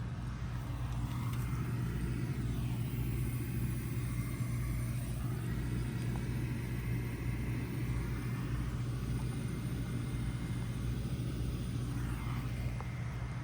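Goodman CPLE30 heat pump outdoor unit running steadily in cooling mode: an even, strong hum from its Copeland reciprocating compressor and condenser fan, with no change in level.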